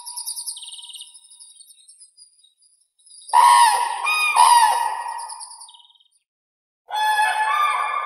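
Common cranes giving loud trumpeting calls: one call dies away at the start, two loud calls follow a few seconds in, and another burst of calling begins near the end.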